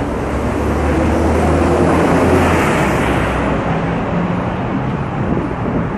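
Heavy road traffic on a multi-lane avenue: cars and buses running past in a steady rush. The low note of a large vehicle's engine stops about halfway through, and a louder rush from a passing vehicle swells around two to three seconds in.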